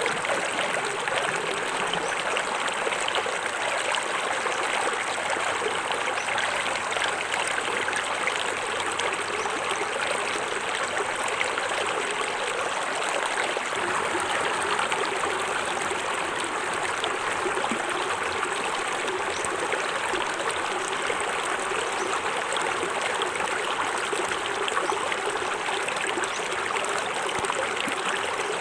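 Small forest waterfall with water splashing and running over rocks in a steady, even rush.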